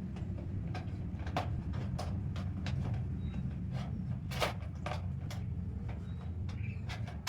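Shoe rack parts clicking and knocking as they are handled and fitted together: irregular sharp taps about two a second, the loudest near the middle, over a steady low hum.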